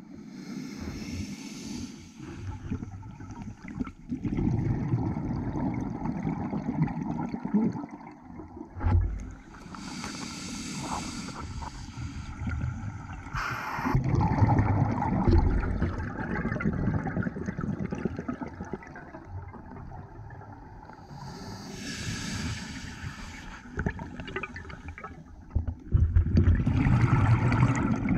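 Scuba diver's regulator exhaling underwater: bubbles gurgle and hiss out in four bursts several seconds apart, with a low rumble of moving water between them.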